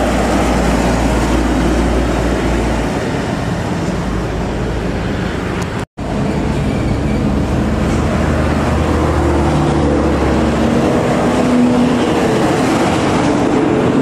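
Road traffic passing close by: the engines and tyres of a light truck, a minibus and motorcycles, a steady mix of low engine hum and road noise. The sound cuts out for an instant about six seconds in.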